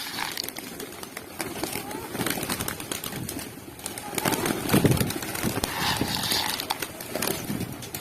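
Pigeons cooing, low pulsing calls that are strongest midway, amid many small clicks.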